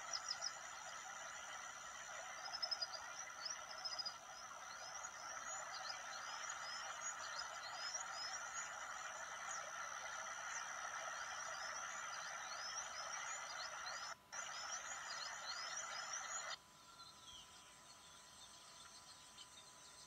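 Outdoor nature ambience: many quick, high, rising bird chirps over a dense, steady background chorus. It cuts out for a moment, then drops to a much fainter background about three-quarters of the way through.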